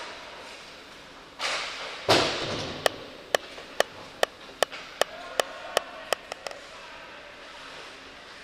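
Ice hockey play sounds at the net: a scraping rush, then a hard hit about two seconds in that echoes through the rink. After it comes a run of about ten sharp, ringing taps that come quicker toward the end, like a hard object bouncing to rest.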